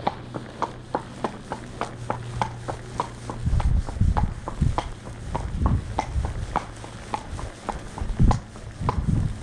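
Horse's hooves clip-clopping on a village road at a walk, about four steps a second. From about three and a half seconds in there are bursts of low rumble under the hoofbeats.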